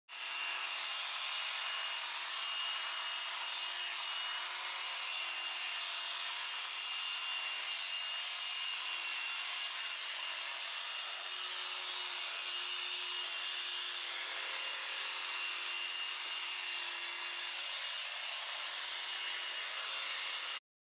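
Electric sheep shears running steadily as they cut through a sheep's fleece, with a constant high whine over the noise of the motor and cutter. The sound stops abruptly near the end.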